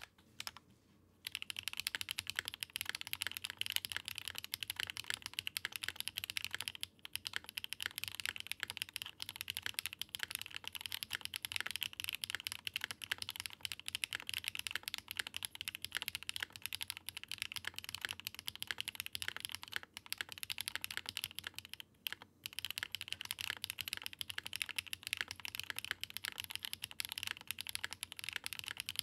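Fast, continuous typing on a Daring Run DR-70F mechanical keyboard with HMX Sunset Gleam linear switches, GMK Olive Noir keycaps and no foam. It pauses briefly at the very start and again about seven and twenty-two seconds in.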